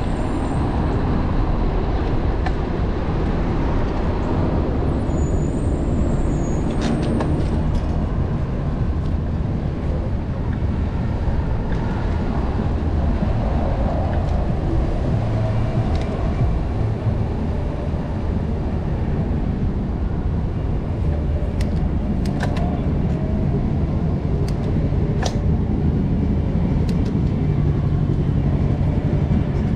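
City street traffic heard from a moving bicycle: a steady rumble of cars and buses mixed with wind on the microphone, with a few short clicks.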